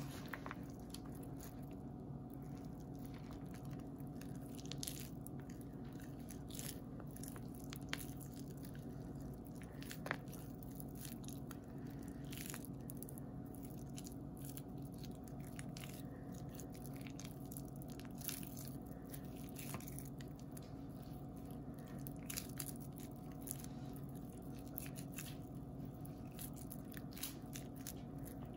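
Moistened grated soap scraps crunching and crackling as hands scrape them together in a plastic tray and squeeze them into a ball, with many small crackles over a steady low hum.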